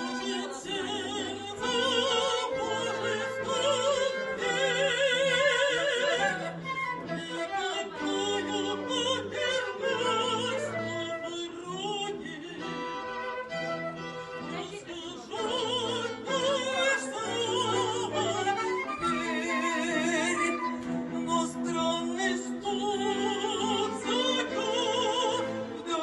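Operatic soprano singing with vibrato over a chamber ensemble of flute, violin, viola and cello, with the cello holding long low notes.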